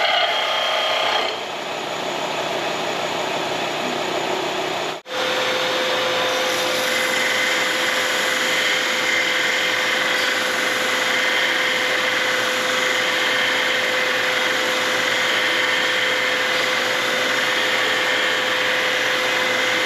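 Angle grinder running against steel, a loud, steady grinding noise with a whine. The sound breaks off for an instant about five seconds in, then runs on steadily.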